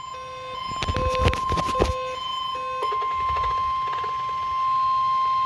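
NOAA Weather Radio's 1050 Hz warning alarm tone: one long, steady single-pitch tone. It is the attention signal that a warning broadcast, here a special marine warning, is about to follow. A few knocks sound over it about one to two seconds in.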